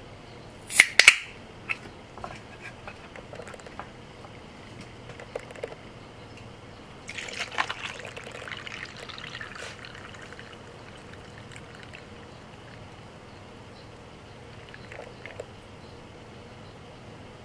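An aluminium can of cold brew coffee cracked open with a sharp pop and hiss about a second in. About seven seconds in, the coffee is poured from the can over ice into a stainless steel tumbler, splashing for about three seconds before it trails off.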